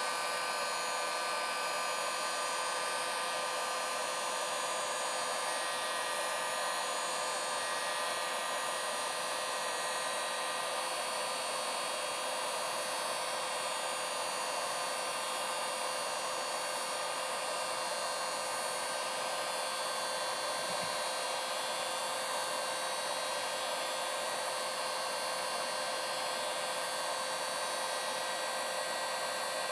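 Electric heat gun running on its low setting: a steady blowing hiss with a constant fan whine. It is heating a chainsaw crankcase so the bearing expands to take a frozen crankshaft.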